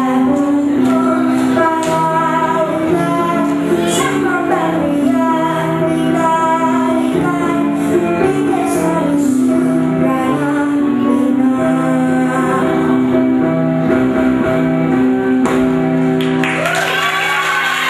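A young girl singing into a microphone over backing music with steady held accompaniment notes. Her voice stops shortly before the end while the music carries on.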